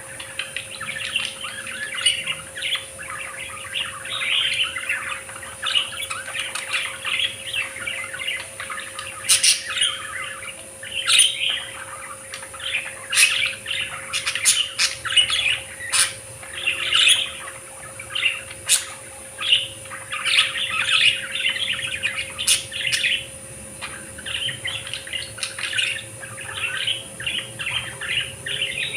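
A group of budgerigars chattering and warbling continuously, with frequent short, sharp chirps cutting through.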